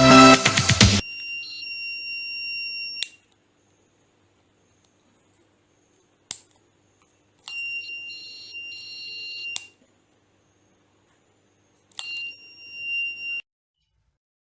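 A 3-volt DIY door-alarm buzzer sounding a steady high-pitched tone three times, each for about one and a half to two seconds, with a single sharp click between the first two.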